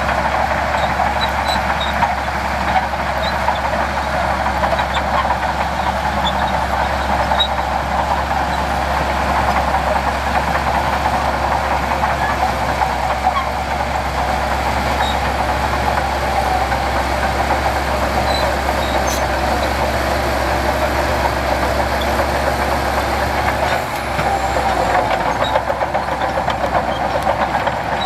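Heavy diesel earthmoving machinery running steadily, its engine noise continuous with a brief dip in the low rumble near the end.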